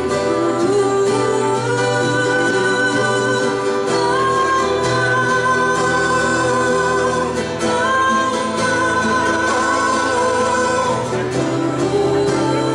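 Two acoustic guitars playing while a woman and a man sing together in a live acoustic duet.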